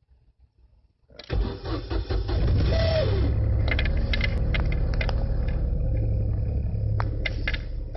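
Opel Corsa B engine started with the key: after about a second of quiet the starter cranks and the engine catches suddenly, with a brief whine that drops in pitch, then settles into steady running. This is the noise the car always makes at start-up, which the owner suspects comes from the starter motor.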